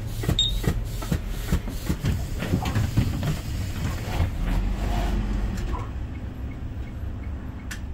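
Inside a city bus: a steady low engine and road rumble. A run of regular taps, about two and a half a second, comes through the first couple of seconds, and one short high beep sounds about half a second in.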